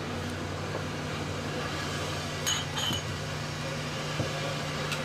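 Drinking glasses clinking together twice in quick succession about two and a half seconds in, each with a short bright ring, over a steady low hum.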